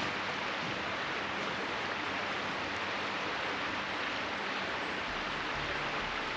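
Steady rushing of a fast-flowing river, an even wash of water noise with no distinct events.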